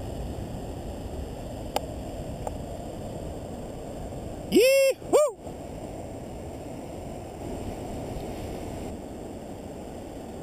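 Wind buffeting the microphone: a steady low rumble. About halfway through, two loud short calls that rise and fall in pitch cut through it.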